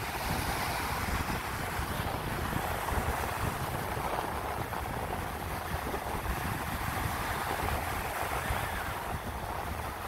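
Ocean surf: small waves breaking in the shallows and washing up over the sand in a steady rush, with wind buffeting the microphone.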